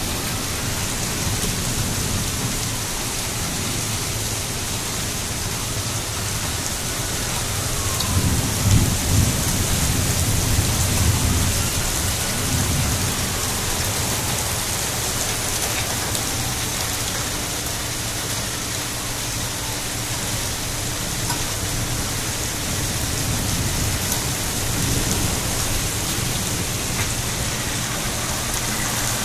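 Heavy rain falling steadily during a thunderstorm, with thunder rumbling about a third of the way in.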